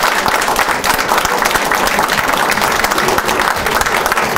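Audience applauding: many hands clapping in a dense, steady stream at an even level.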